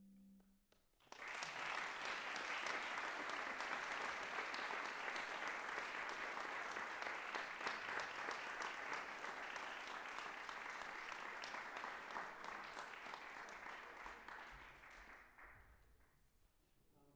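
A moment of quiet, then an audience applauding, starting about a second in and fading away near the end.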